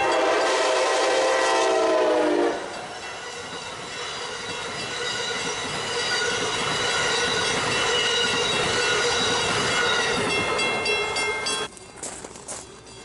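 Amtrak electric locomotive sounding its horn, a chord of several tones lasting about two and a half seconds as it approaches, then the train of passenger coaches rushing past steadily at speed. About a second before the end the sound cuts off abruptly to quiet outdoor ambience.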